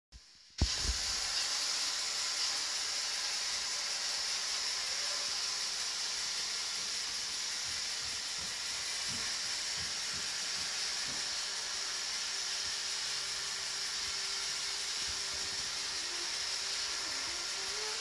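iRobot Roomba robot vacuum running on a wooden floor, a steady high whirring hiss from its vacuum motor and brushes, starting about half a second in.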